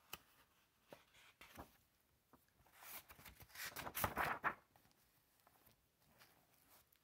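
Pages of a hardcover picture book being handled and turned, with a few light paper clicks at first and then a quick flurry of rustling paper as the pages are flipped through, loudest around the middle.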